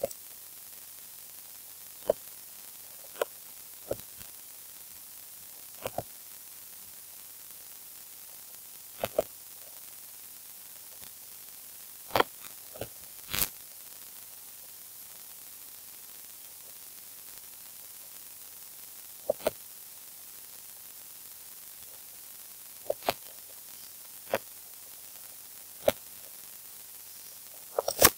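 Computer mouse clicking: a dozen or so short, sharp clicks at irregular intervals, some in quick pairs, over a steady hiss from the recording.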